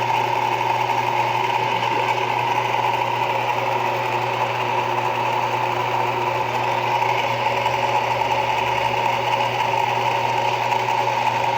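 Old washing machine's electric motor running steadily with a constant whirring hum, its rusted motor freshly lubricated.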